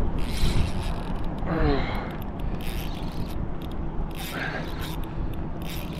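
Spinning fishing reel being cranked, its gears and bail clicking and whirring steadily as line is wound in on a hooked fish.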